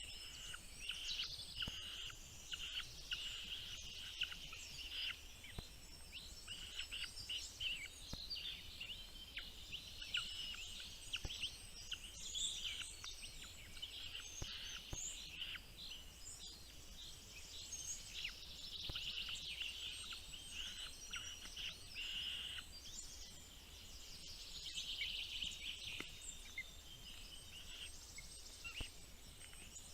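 Small birds chirping continuously, many short high-pitched calls overlapping in a dense chatter.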